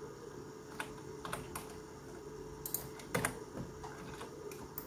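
Scattered clicks of a computer keyboard and mouse as shortcut keys, among them a numpad key, are pressed: about eight separate clicks, two close together a little past three seconds in, over a faint steady hum.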